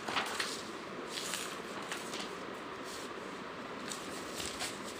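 Faint rustling and brushing of a paper sheet being handled, a few short strokes over a steady background hiss.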